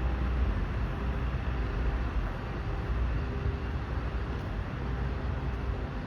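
Steady low rumble of buses and traffic at a busy bus interchange.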